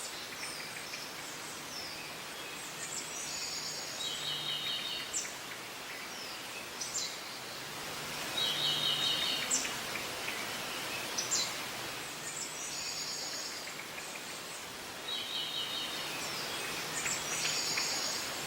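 Birds singing in short, high trilled phrases that come again every few seconds over a steady background hiss, a forest ambience.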